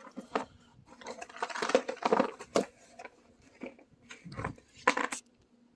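Computer parts being handled: a run of small plastic and metal clicks and rustling, a low knock, then a sharp click near the end.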